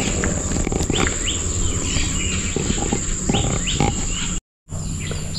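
Insects shrilling in a steady high-pitched drone, with short rising chirps repeating over it and a low rumble beneath. The sound cuts out for a moment near the end.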